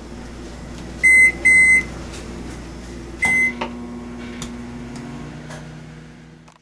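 Microwave oven keypad beeping as the timer is set: two short beeps about a second in and a third just after three seconds, after which the oven starts cooking with a steady hum.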